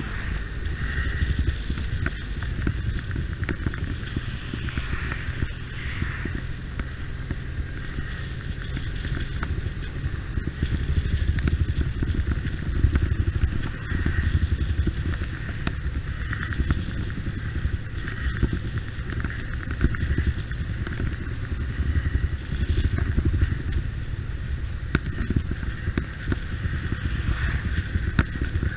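Motorcycle running on the road: a steady, rumbling engine and road noise without a break.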